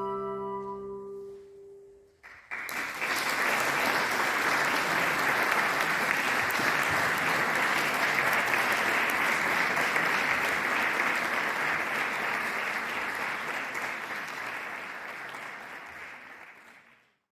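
The last held chord of a flute, oboe, clarinet and cello ensemble dies away, and about two and a half seconds in an audience breaks into applause, which runs on steadily and fades out near the end.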